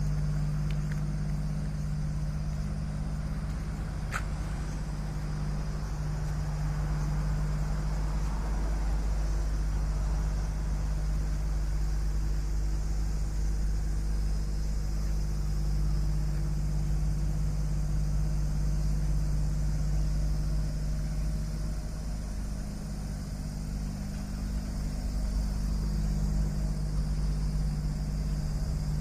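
An engine idling steadily, a low even hum, with a single faint click about four seconds in.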